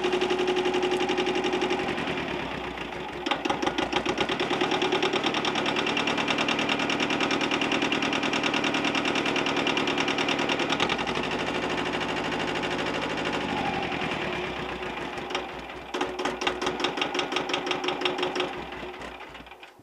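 Yanmar 155D tractor's two-cylinder diesel engine running, its speed rising and falling several times, then shut off just before the end.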